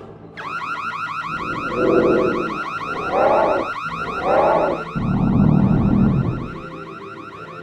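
Cartoon electric ray-gun sound effect: a zapping warble of quick rising sweeps, repeated many times a second, that starts about half a second in and runs until just before the end. Over it come three short cries and then a low rumble about five seconds in.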